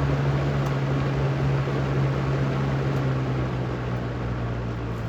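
Electric box fan running: a steady motor hum with a rush of air from the blades. Near the end the hum sinks a little in pitch and the sound eases off, as the fan begins to slow.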